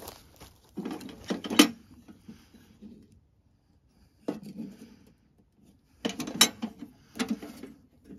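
Steel ammo-box stove being handled, its hinged metal legs swung out and knocked into place: clanks and clicks of metal in four short clusters, the loudest about a second and a half in and again about six seconds in.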